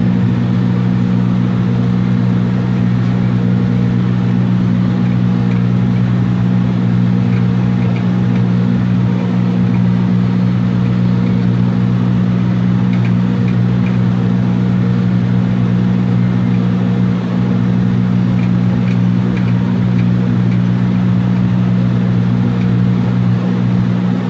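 John Deere 5083E tractor's four-cylinder diesel engine running steadily under working load, a loud, even drone heard from the operator's seat.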